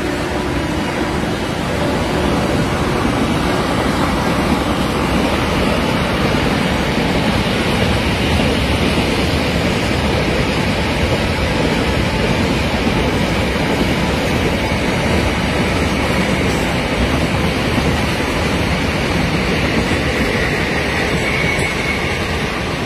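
Steady rushing noise of a long double-stack container freight train rolling past, with no horn or clear wheel rhythm.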